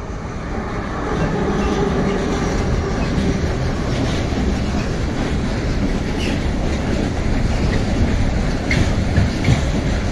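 Container freight train hauled by a Siemens Smartron electric locomotive passing close by. The sound of the wagons rolling by swells over the first second or so and then holds steady, with short clicks and squeaks from the wheels on the rails.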